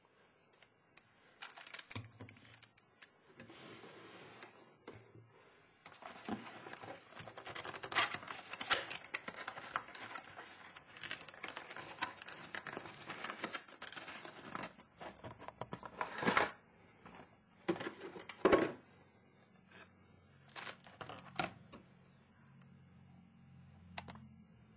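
Camera packaging being handled: irregular rustling and crinkling with many scattered clicks and knocks, the sharpest knocks about 16 and 18 seconds in.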